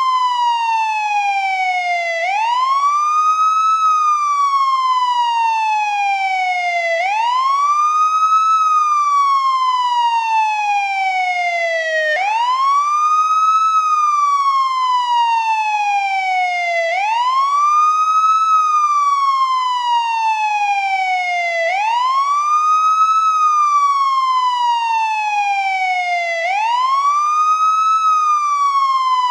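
Police siren in wail mode: a single tone that rises quickly in pitch, then falls slowly, cycling steadily about every five seconds.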